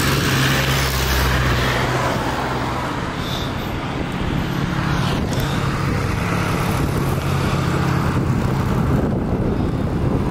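Road traffic: motor vehicles running and passing, a steady low engine hum under the noise of tyres on the road.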